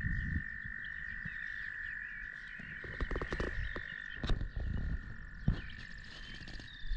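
A chorus of frogs calling steadily in a continuous high-pitched drone. Under it are low rumbling and a few sharp knocks close to the microphone, mostly between about three and five and a half seconds in.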